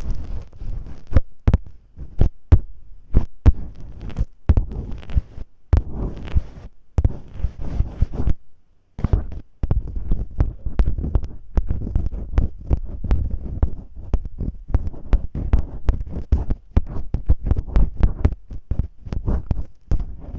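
Masking tape rubbed, pressed and peeled against the microphone in the manner of ASMR ear cleaning: a quick, irregular crackle of sharp clicks over soft low thumps, with a short pause about eight seconds in.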